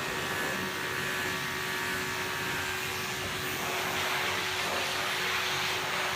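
Electric dog-grooming equipment running with a steady whir and a faint hum, its hiss growing louder about three and a half seconds in.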